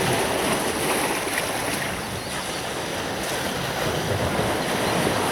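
Sea surf washing onto a beach: a steady rush of waves, with wind on the microphone.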